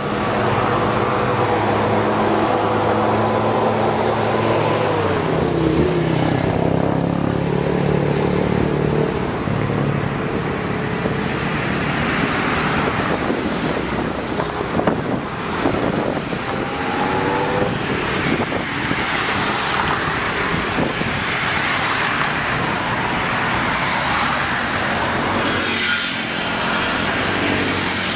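Busy road traffic on a multi-lane bridge, with cars, buses and motorcycles passing close by in waves. A heavy vehicle's engine drones through the first several seconds, dropping in pitch about five seconds in.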